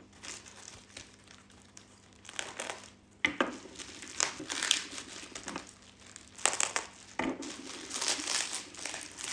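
Plastic packing wrap crinkling and rustling in irregular bursts as it is handled and pulled off a wrapped crystal, with several sharper crackles in the second half.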